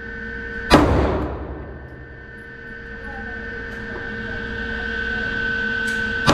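Two 9mm pistol shots from a Smith & Wesson Equalizer, one near the start and another right at the end, about five and a half seconds apart, each with a short reverberant echo off the walls of an indoor range. A steady hum fills the gap between them.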